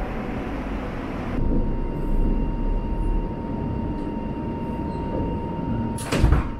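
Electric commuter train running, with a steady low rumble; about a second and a half in, a steady high tone comes in and holds. Near the end there is a brief, loud rush of noise.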